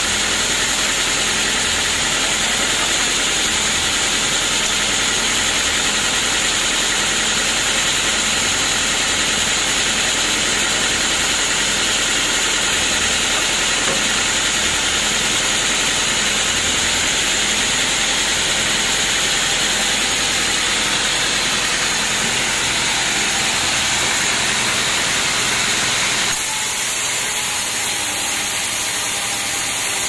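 Band sawmill running steadily with a hissing hum while the teak log is moved into place, its blade not yet in the wood. Near the end the sound changes abruptly, and the blade is heard cutting through the teak log.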